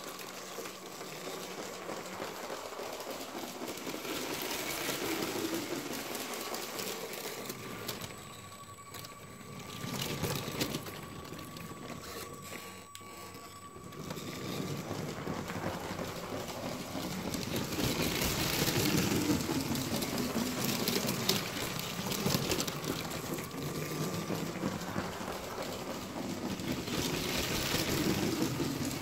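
Lego Power Functions train motor whirring with a thin steady whine while the plastic wheels click and rattle continuously over plastic track, growing louder and softer as the train runs near and away.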